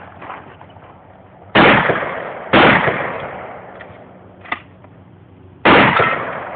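Three shotgun shots: two about a second apart, then a third about three seconds later. Each blast fades with a long echoing tail. A faint sharp click comes between the second and third shots.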